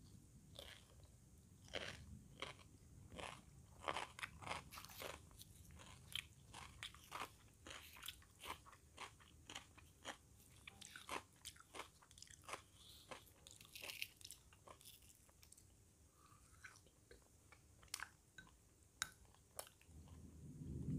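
A person chewing a mouthful of puri with fried vegetables: a run of faint, crunchy, wet mouth clicks that thin out in the second half.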